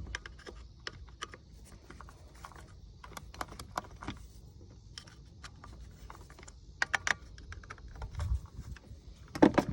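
Irregular small clicks and taps of a screwdriver and plastic and metal parts being handled while a Mercury Commander 2000 boat remote control is adjusted, with a cluster of clicks about seven seconds in and a duller knock a second later.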